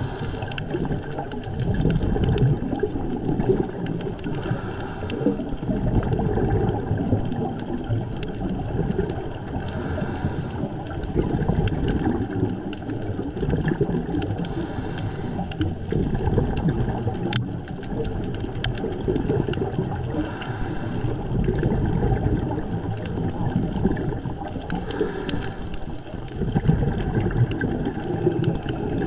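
Underwater sound picked up by a diver's camera: a steady low rumble of water. About every five seconds comes a hissing, bubbling swell, the rhythm of a scuba diver's regulator breathing and exhaled bubbles.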